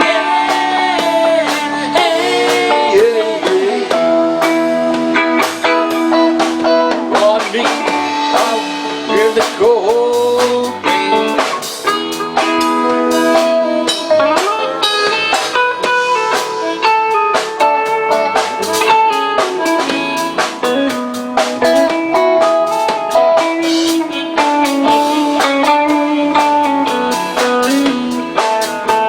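Live rock band playing an instrumental passage: a guitar lead with bent, gliding notes over sustained chords, bass and drum kit.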